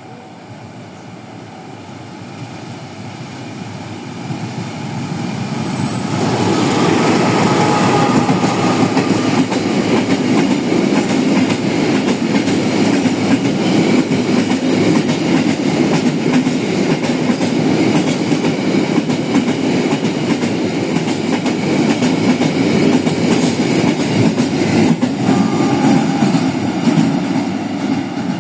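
CC 206 diesel-electric locomotive approaching and passing at the head of a train of rail tank wagons. The noise grows over the first six seconds, then stays loud and steady as the wagons roll by, their wheels clacking over the rail joints.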